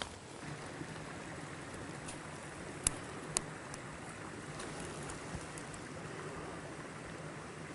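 Stream water running steadily, with two sharp clicks close together about three seconds in.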